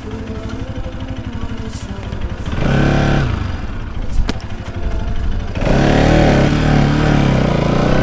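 Motorcycle engine running with a rapid low pulse. It revs up briefly around three seconds in, then opens up louder and keeps revving from about six seconds on. A sharp click is heard once, near the middle.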